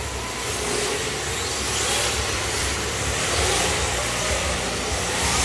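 Several electric RC drift cars running on an indoor track: motors whining up and down in pitch over a steady hiss.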